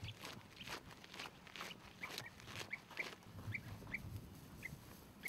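Footsteps of a person walking in rubber boots along a dirt path, with repeated short high chirps about twice a second.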